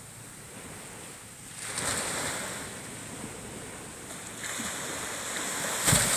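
Small waves breaking and washing up a sandy beach on a calm sea. One wash swells about two seconds in and fades, and a second, louder one builds and breaks near the end.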